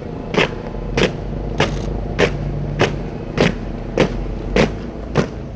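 Boots of a ceremonial honour guard striking pavement in a slow, even march, a sharp step roughly every 0.6 seconds over a steady low rumble.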